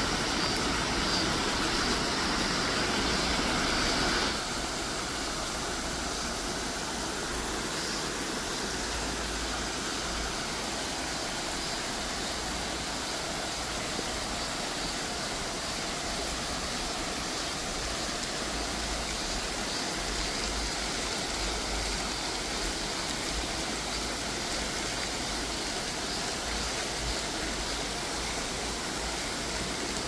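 Stream water running over and between stepping stones, a steady rush that drops a little in level about four seconds in.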